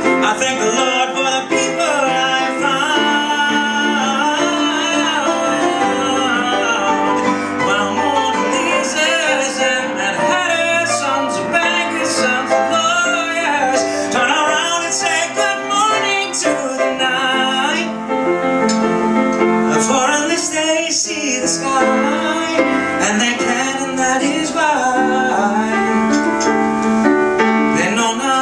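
A man singing a ballad into a microphone, with piano accompaniment.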